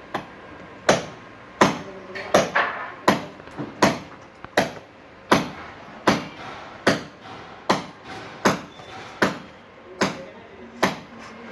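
Steady hammer blows, a little over one a second, each sharp and quickly fading.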